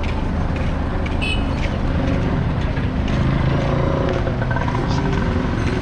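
Busy street traffic: motor vehicle engines running with a steady low rumble.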